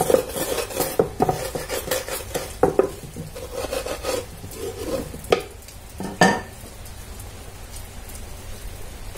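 Wooden rolling pin rolled back and forth over wet taro leaves on a wooden board, pressing them flat, with a few sharp knocks in the middle. It grows quieter near the end.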